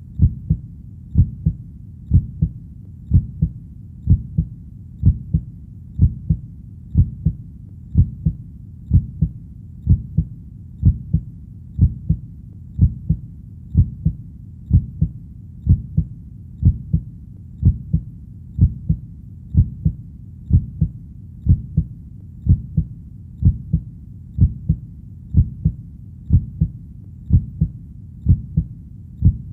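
Human heartbeat beating steadily at about one beat a second, each beat a low, dull thud.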